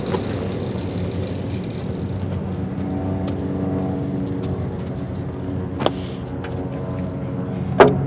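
A steady motor hum, with two sharp clicks, the second and louder just before the end.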